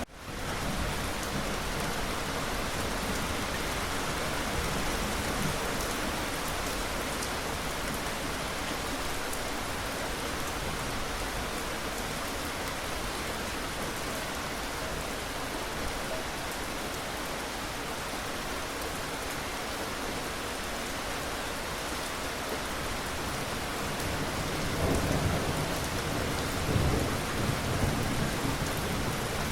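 Steady rain, with low rumbles of thunder swelling a few seconds before the end.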